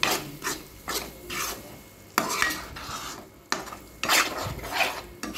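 Steel spoon stirring and scraping thick masala paste and green peas around a non-stick kadai in repeated strokes, roughly two a second, over a light sizzle of the paste frying in oil.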